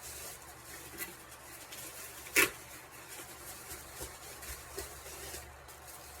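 Plastic packaging and bubble wrap being handled and pulled off an action figure: a soft rustling with a few light clicks, and one sharp snap about two and a half seconds in.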